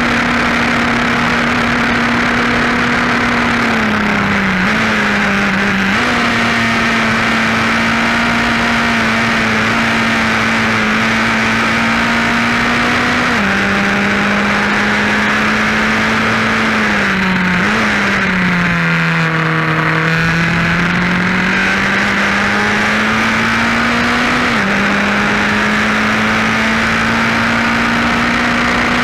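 Formula 4 race car engine running at high revs, heard from on board. The pitch stays level for long stretches and steps down at gear changes. Around two-thirds of the way through it drops lower, then climbs back up as the car brakes for a corner and accelerates out.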